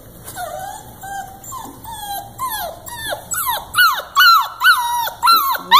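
Puppy whining: a run of short, high whimpers that each drop in pitch. They start faint and come faster and louder through the second half.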